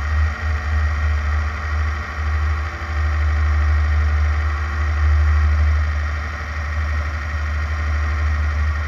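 Air-cooled Volkswagen flat-four engine of a Class 11 stock VW Beetle race car running with a steady engine note and a strong low rumble.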